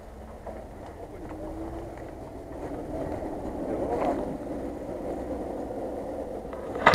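Jeep Wrangler Rubicon's engine running as it crawls through mud and wet leaves, swelling about halfway through. A sharp knock near the end is the loudest sound.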